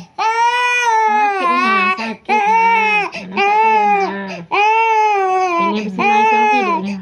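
A baby crying hard while it is being massaged: about five long, high wails, each broken by a quick breath.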